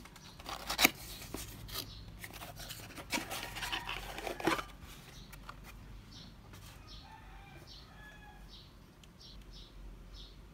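Cardboard parcel being handled and torn open: crinkling, tearing and clicking, with a sharp knock about a second in. After about five seconds the handling stops, leaving faint, repeated short high chirps.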